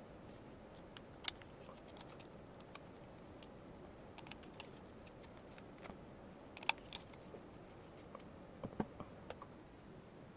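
Scattered clicks and taps of small rifle parts being handled, the sharpest about a second in and near the middle, with a quick run of knocks near the end.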